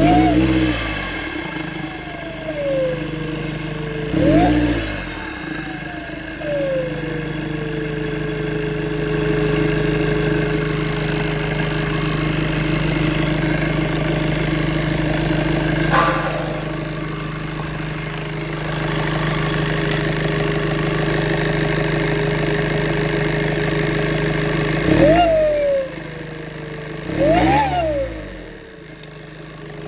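Turbocharged engine revved in four short blips, two near the start and two near the end, between stretches of idling. With each rev a whistle rises and then slides back down to a steady whistle that holds at idle, the turbo resonance whistle and vibration the owner is demonstrating.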